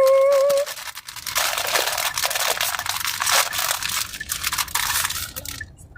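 A bag of salt and vinegar crisps crinkling and crackling as it is pulled open and handled, for about four seconds after a held note of voice ends in the first second.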